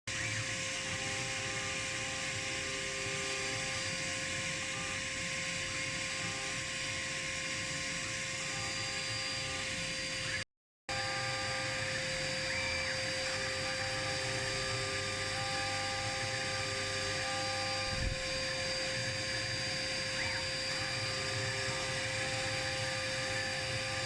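CNC router's 2200 W spindle running with a steady high whine, while shorter tones come and go as the machine moves. The sound cuts out for a moment about ten seconds in.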